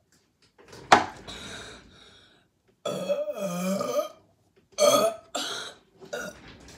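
A boy burping loudly after chugging Pepsi: one long, low burp that wavers in pitch, starting about three seconds in and lasting about a second, then a few shorter bursts. It is preceded about a second in by a sharp, noisy sound.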